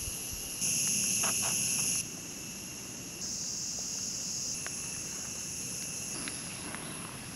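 Steady high-pitched insect chorus, its loudness stepping up and down abruptly every second or two.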